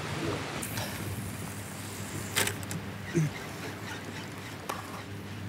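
Popper lure being jerked across the water surface, giving a few sharp pops and splashes, a little under a second apart near the middle, to draw a strike from dorado. A boat's motor hums steadily underneath.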